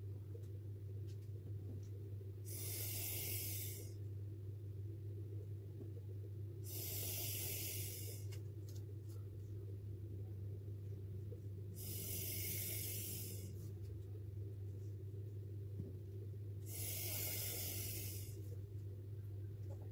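Breath blown through a drinking straw onto wet alcohol ink: four hissing puffs, each about a second and a half long, a few seconds apart. A steady low hum runs underneath.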